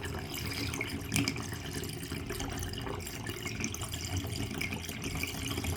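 Water running into a bathtub to test a newly replaced bathtub drain, a steady splashing flow.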